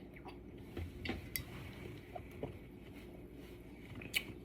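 Quiet room with a few faint, short clicks and ticks, scattered about a second in, a little past two seconds, and near the end.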